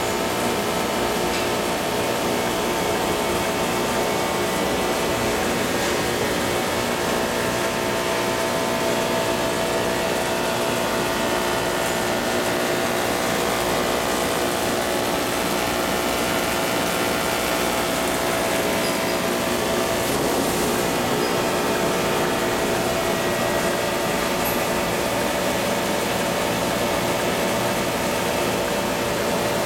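PVC shrink-film blowing machine running: a steady mechanical whine and hum from its motors, gearboxes and blower, holding several steady tones with no change in level.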